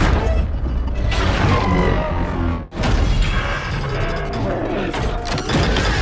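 Designed sound effects of the 2021 film Mechagodzilla: loud mechanical grinding and high metallic tones over a deep rumble. The sound comes in two long stretches split by a brief break almost three seconds in.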